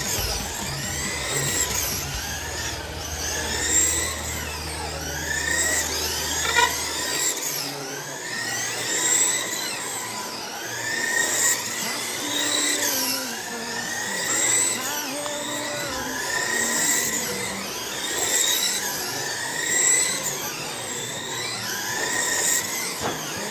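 Several electric RC race cars running laps: a pack of motor whines rising and falling in pitch over and over as the cars accelerate and brake, swelling each time they pass.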